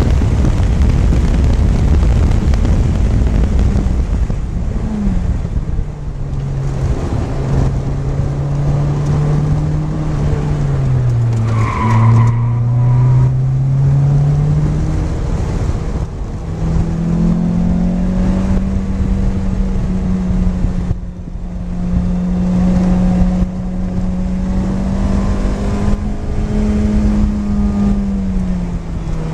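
Lotus Elise's four-cylinder engine heard from inside the cockpit at track speed, its pitch falling through a corner, rising again after about 16 s and holding high until it drops near the end, over steady road and wind noise. A brief tyre squeal about 12 seconds in.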